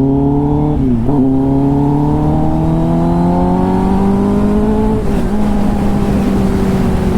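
Kawasaki ZX-10R inline-four with an SC-Project titanium exhaust under way. The revs climb, dip in a quick upshift about a second in, climb steadily again, then drop at about five seconds in and hold nearly level.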